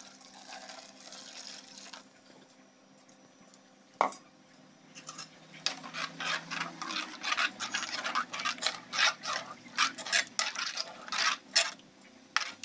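Water poured into ground coconut-masala paste in a pot, then a steel spoon stirring the mixture. After one sharp knock about four seconds in, the second half is quick, repeated scraping and clinking of the spoon against the pot.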